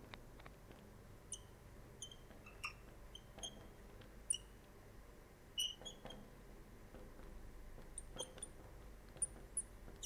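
Marker pen squeaking on a lightboard as capital letters are written, about a dozen short, high squeaks at irregular intervals over a faint low hum.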